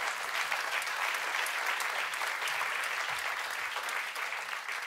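Audience applauding, many people clapping at once in a steady patter that eases off slightly toward the end.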